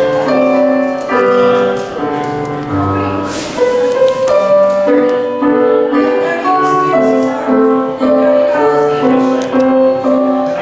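Keyboard music: a melody of held notes played over lower chord notes.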